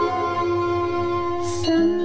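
Instrumental devotional background music: a held melody note with small bends over a steady drone, with a brief high shimmer near the end.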